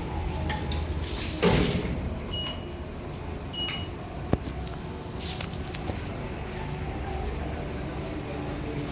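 Khind ceiling fan running with a steady low hum. About a second and a half in there is a loud brief whoosh, then two short high beeps about a second apart and a sharp click.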